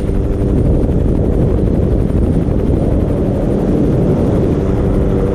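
Hughes 500 (MH-6 Little Bird) helicopter running steadily in flight: a loud, even rotor and engine rumble with a steady hum over it.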